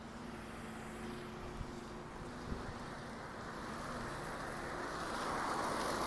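A car approaching and passing close by: its noise swells from about halfway through and is loudest as it goes past at the end.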